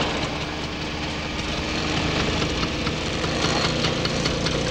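Small motor scooter engine running steadily as it is ridden along.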